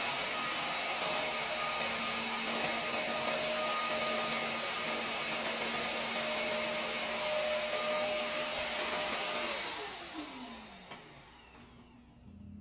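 Shark Mess Master wet/dry vacuum running steadily while clean water is drawn through to rinse the hose and tube. About ten seconds in it is switched off, and the motor winds down with a falling whine.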